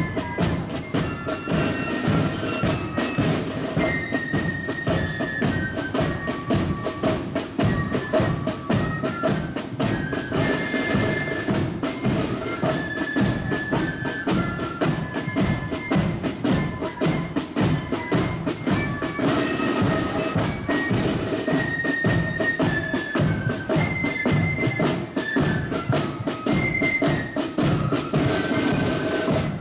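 Marching flute band playing a tune: flutes carry a high stepping melody over rapid, dense side-drum strokes and a bass drum beat.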